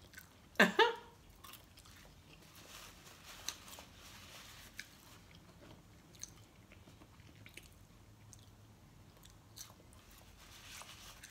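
A person chewing a mouthful of fast food up close, with faint crunches and small wet mouth clicks. There is a short voiced sound from the eater about half a second in.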